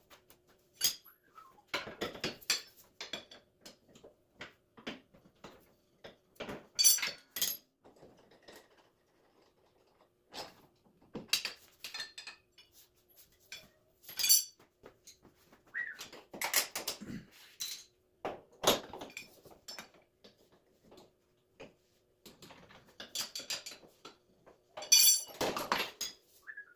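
Steel hand tools and mower blades clinking and clanking at irregular intervals as the bolts are undone and the blades are taken off a mower deck, over a faint steady hum.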